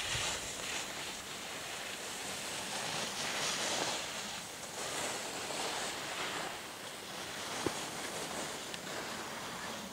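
Wind hiss outdoors on a ski slope, swelling and easing in gusts, with one brief click about three-quarters of the way through.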